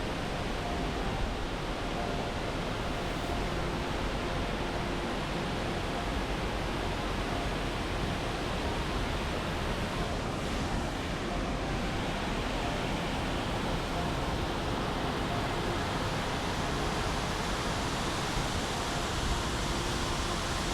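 A waterfall's steady rushing water, an even, unbroken wash of sound.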